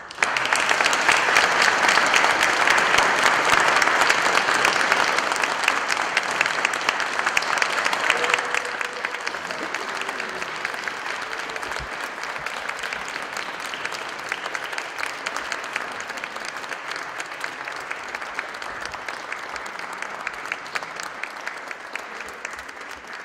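Church concert audience applauding. The clapping starts abruptly, is loudest for the first eight seconds or so, then slowly dies down.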